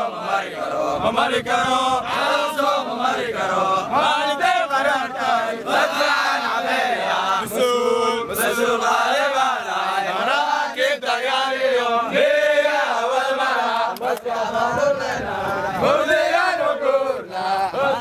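A crowd of soldiers chanting together in men's voices, many voices at once without a break.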